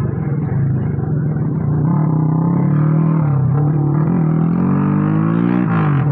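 Honda CD70 motorcycle's single-cylinder four-stroke engine running, blipped up a few times from idle. About four seconds in it is revved in one longer rising pull, and the revs drop back sharply near the end.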